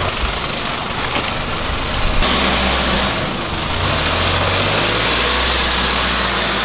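A motor vehicle engine running steadily, its note changing and getting louder about two seconds in.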